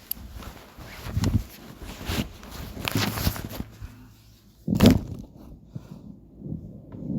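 Irregular rustling and knocking handling noise, with one loud thump about five seconds in.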